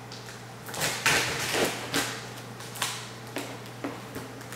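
Packing tape being torn and peeled off a cardboard box: a run of loud tearing rips starting about a second in, then a few shorter sharp crackles.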